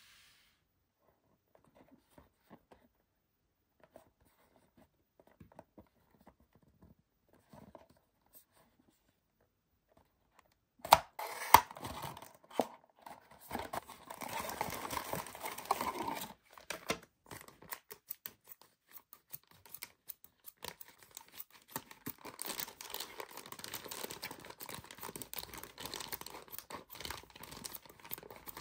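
Unboxing a small cardboard toy box: faint handling at first, then about eleven seconds in the box is torn open with loud cardboard tearing. A plastic bag crinkles for the rest of the time and is snipped with scissors near the end.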